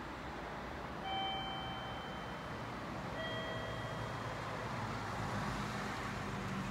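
Electronic two-note station chime: a higher tone about a second in, then a lower one about two seconds later, each held about a second, over steady platform background noise. A low hum swells near the end.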